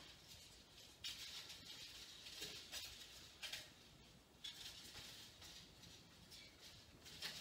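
Faint, intermittent swishing and rustling of warp thread being drawn by hand through a floor loom, several soft swishes each lasting up to a couple of seconds.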